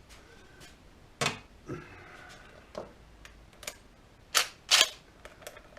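Tools and small parts being handled at a workbench: a string of separate sharp clicks and clacks, the two loudest close together about four and a half seconds in.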